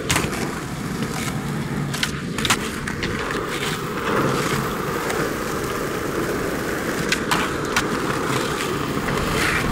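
Skateboard wheels rolling on rough asphalt, a steady rumble, broken by several sharp wooden clacks of the board being popped and landed during flatground tricks, the loudest about two and a half seconds in.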